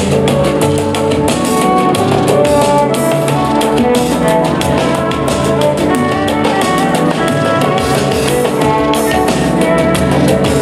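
Loud music with a fast, steady drum beat and sustained pitched notes.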